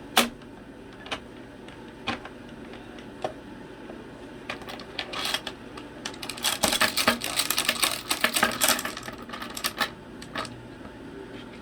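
Cockatoo's beak working a small door lock: scattered sharp clicks and rattles, with a dense run of rapid clicking from about five to nine seconds in.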